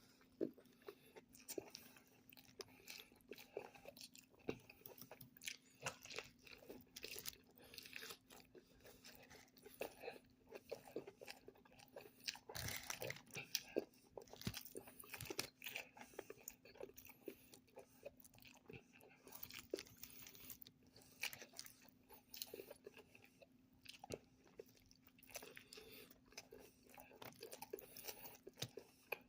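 A person chewing and biting into a Whataburger burger close to the microphone: quiet, irregular crunches and wet mouth clicks, with a faint steady hum underneath.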